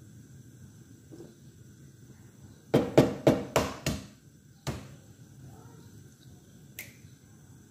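A quick run of about five sharp knocks in a second and a half, then a single knock a moment later and a faint one near the end: a hard object rapped against a hard kitchen surface.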